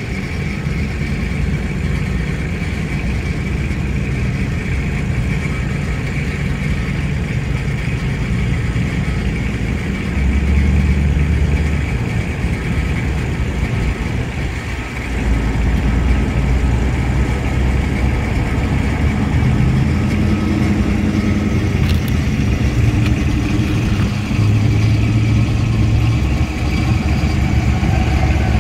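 Engines of classic cars and hot rods running as they drive slowly past one after another, with louder passes about ten seconds in and from about fifteen seconds on.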